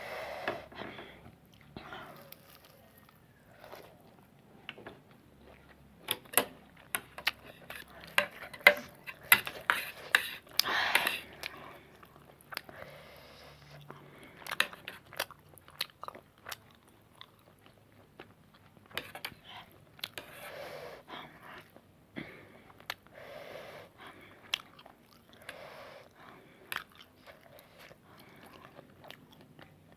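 Close-up chewing of extra-spicy noodles, with many wet mouth clicks and smacks. They come thickest from about a fifth to half of the way through, then thin out into softer, scattered chewing.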